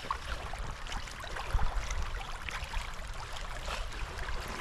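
Water trickling and lapping, with scattered small splashes and ticks over a low rumble, and a slightly louder splash about one and a half seconds in.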